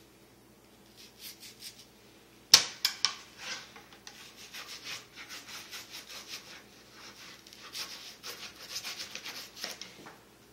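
Kitchen knife slicing and dicing an onion on a plastic cutting board. A sharp knock comes about two and a half seconds in, then a long quick run of crisp cuts through the onion against the board.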